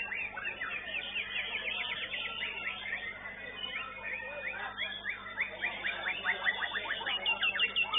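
White-rumped shama (murai batu) birdsong: varied chirps and trills of quickly repeated sharp notes, with a fast run of repeated notes near the end.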